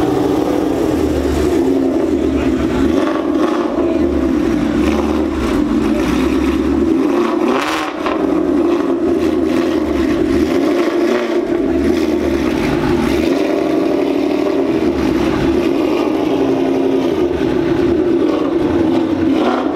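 Ford Mustang's engine running as the car drives slowly past and away, a steady exhaust note throughout.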